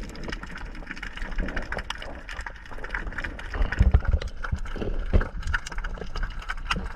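Underwater sound picked up by a diving camera: scattered crackling clicks over a low rumble of moving water, with a cluster of heavy low thumps about four seconds in.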